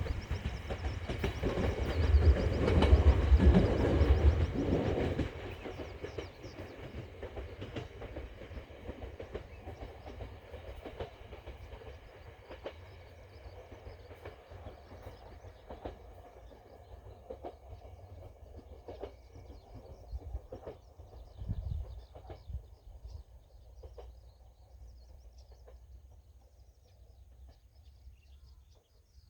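Ueda Electric Railway Bessho Line 1000 series two-car electric train passing close by, loud for about the first five seconds, then fading away into the distance.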